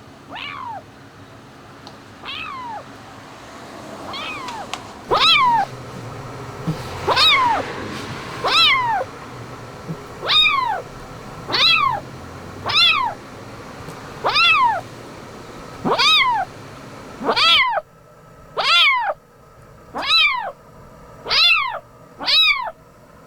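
A kitten meowing over and over in distress, trapped in a storm drain. The cries are high-pitched, each rising then falling in pitch. A few faint ones come first, then louder, regular cries about every second and a half from about five seconds in.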